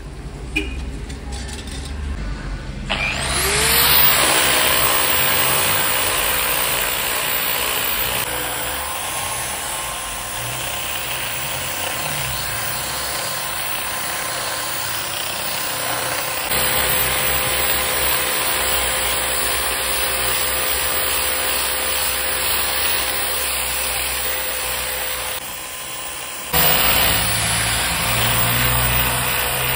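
DCA angle grinder with a hook-and-loop sanding disc spinning up about three seconds in, its whine rising to a steady pitch, then running as it sands raw wood with a hiss from the disc. The sound dips briefly near the end before coming back at full level.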